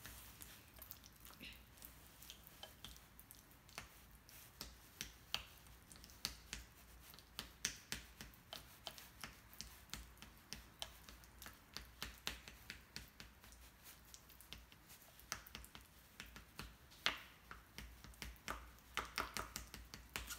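Small plastic spoon tapping and scraping against a ceramic bowl while mashing avocado: faint, irregular clicks, several a second.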